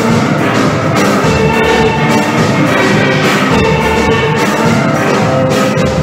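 Steel orchestra playing live: several steel pans ringing out melody and chords over a steady percussion beat.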